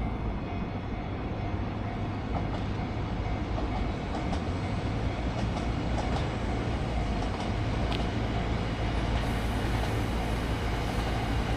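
The TRAIN SUITE Shiki-shima cruise train passing at a crawl, slowed for a faulty level crossing: a steady low rumble with the wheels clicking now and then over rail joints.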